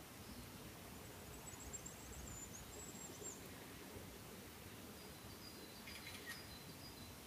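Quiet woodland ambience: faint high-pitched bird chirps, a quick run of thin notes about a second in and a few short chirps with a brief crackle near the end, over a low steady background rumble.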